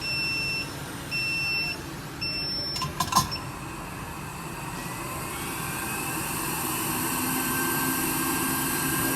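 Electronic beeps of about half a second, repeating roughly once a second, then a few sharp clicks about three seconds in. After that comes the steady hiss of a hot-air rework station blowing on the board during A10 CPU removal, slowly growing louder.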